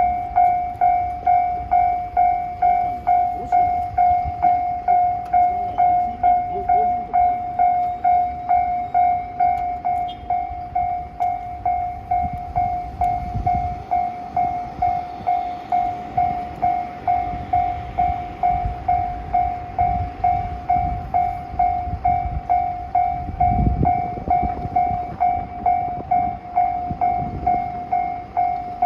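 Japanese railway level-crossing warning bell ringing on and on, an even electronic clang a little under twice a second, the alarm that sounds while the barriers are down. Low rumbles rise under it about halfway through and again near the end.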